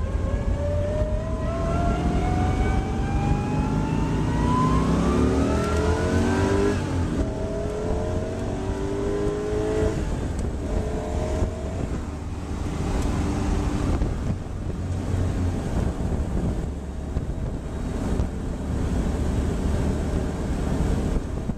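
Classic Chevrolet Corvette V8 heard from inside the cabin, accelerating hard. Its pitch climbs steadily for about seven seconds, then the engine shifts up and pulls on in shorter climbs before settling to a steady cruise.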